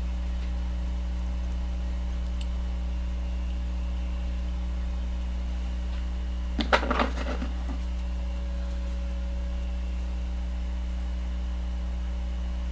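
Steady low electrical hum with a few fixed overtones, unchanging throughout. A short scratchy rustle comes about seven seconds in.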